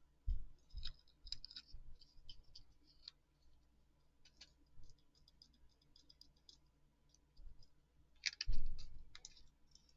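Small plastic glitter containers being handled: scattered light clicks, taps and rattles as lids are opened and glitter is shaken into a mixing cup, with one louder knock near the end.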